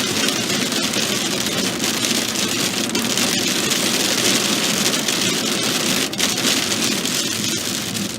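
Steady rain falling on a hard surface: a dense hiss with many small drop ticks.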